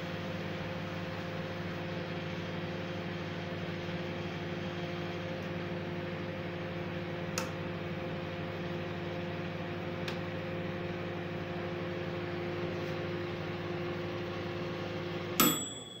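Microwave oven running, a steady electrical hum. Near the end it stops with a sharp click and a short, high ringing ding, and the hum dies away.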